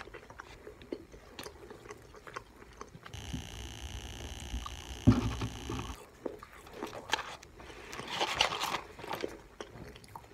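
Close-miked chewing and biting of fast food, with wet mouth clicks and short crunchy smacks. Partway through, a steady hum of several tones runs for about three seconds, and a sharp knock about five seconds in is the loudest sound.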